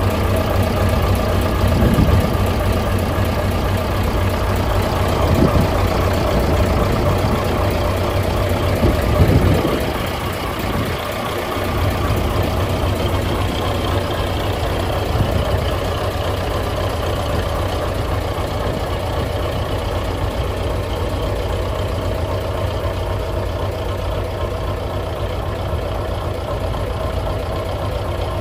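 Engine of a 1967 Scania Vabis LS 76 hot-rod truck idling steadily, with a few short surges in level during the first half.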